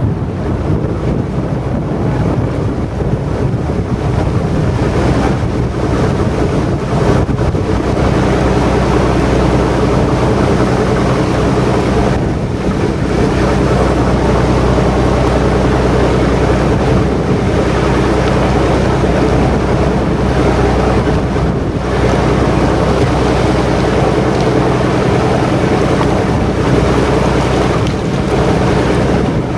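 Boat engine running at a steady drone while the boat cruises, with wind noise on the microphone.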